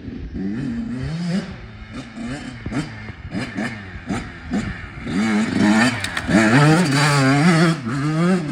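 Dirt bike engine revving up and down through the gears in quick rises and falls of pitch, then running harder and louder at steadier high revs for the last few seconds.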